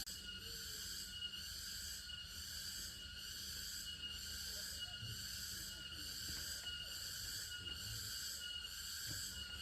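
Chorus of insects chirring in an even pulse, about one and a half beats a second, over a low steady rumble.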